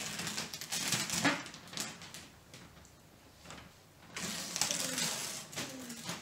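Gift-wrapping paper being torn and crinkled by hand in quick rustling bursts, with a lull of a second or two in the middle before the tearing starts again.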